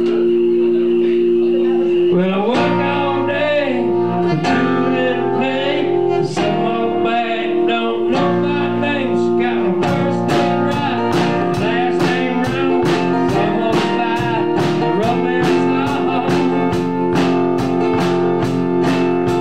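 Live band music: a guitar playing held chords and bent notes, with drums coming in about ten seconds in on a steady beat.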